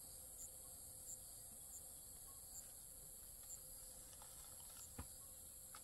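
Near silence outdoors, with a faint steady high-pitched insect chorus. There is a single soft knock about five seconds in.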